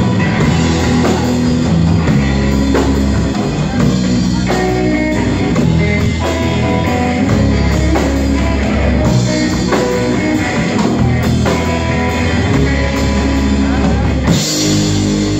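Live rock band playing electric guitar and drum kit, loud and continuous. Near the end the band moves to a held chord over a bright crash.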